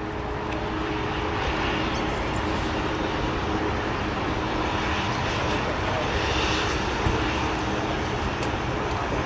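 Jet airliner engines running steadily as a jet rolls along the runway: an even rumble with a faint steady hum.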